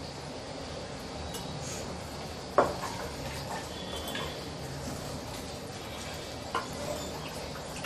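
Wooden spatula stirring chunks of chicken in thick masala inside a metal pressure cooker, scraping and clacking against the pot over a low steady hiss. One sharp knock comes about two and a half seconds in and a lighter one later.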